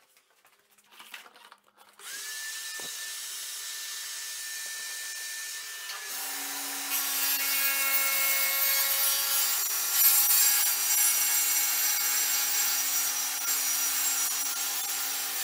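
Kity table saw switched on about two seconds in and running with a steady whine; from about six seconds its blade cuts through the chipboard base of a crosscut sled being pushed across it, a loud sawing noise with ringing tones that lasts to the end.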